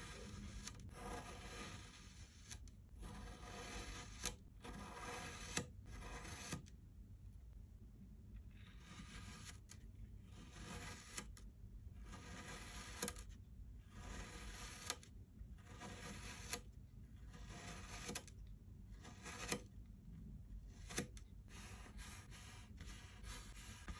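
Knife blade slicing again and again through kinetic sand: a soft, crumbly scraping hiss with each cut, many strokes ending in a sharp tick as the blade meets the surface, about one cut every second and a half.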